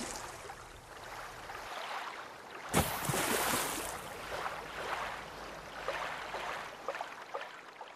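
Water rushing and splashing in surges, with a fizzy crackle; a fresh surge starts sharply about three seconds in and then slowly dies away.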